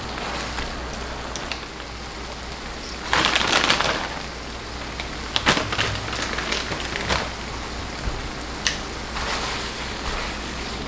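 Ramen noodles in a creamy sauce sizzling and bubbling in a pan, with scattered clicks of utensils and a louder burst of noise about three seconds in.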